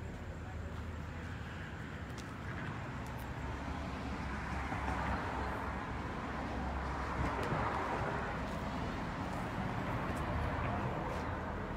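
A road vehicle passing: its tyre and engine noise swells to a peak in the middle and fades away, over a steady low hum.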